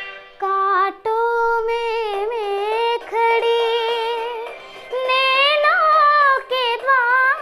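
A young girl singing a song solo, in phrases of long held notes that waver in pitch, with brief breaths between them.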